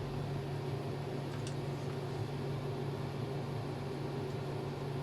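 Steady low hum over a faint hiss, like a small fan or motor running, with one faint tick about a second and a half in.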